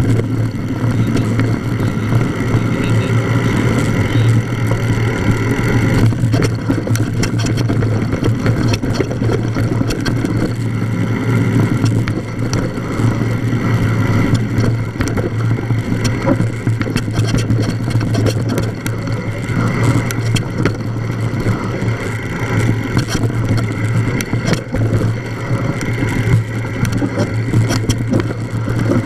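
Wind rushing over an action camera's microphone while a mountain bike rides downhill, with many small knocks and rattles from the bike jolting over a rocky dirt trail.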